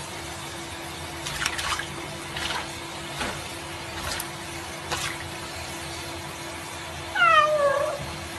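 Tap water running steadily into a sink with a cat lying in it, with several short splashes as the cat paws at the water. Near the end the cat gives one meow that falls in pitch.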